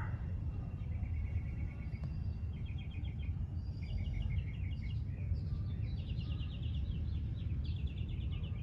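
Outdoor ambience: a steady low rumble with small birds chirping in quick runs of rapidly repeated notes, one run after another from about a second in.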